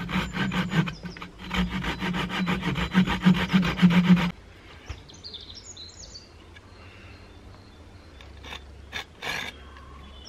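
Folding hand saw cutting a dry hazel stick, rapid back-and-forth strokes that stop suddenly a little after four seconds in. A few quieter strokes follow near the end.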